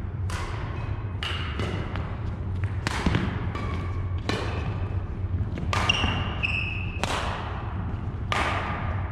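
Badminton rally on a hardwood court: about ten sharp racket smacks on the shuttlecock at uneven intervals, several followed by a short squeaky ring. A steady low hum runs underneath.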